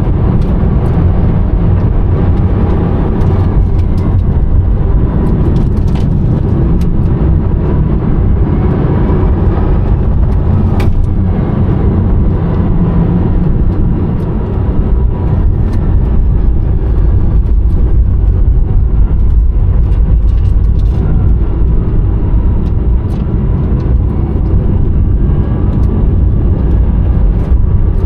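Rimac Nevera electric hypercar driving, heard inside the cabin: a loud, steady low rumble of road and tyre noise, with a faint electric motor whine that rises and falls and a few light clicks.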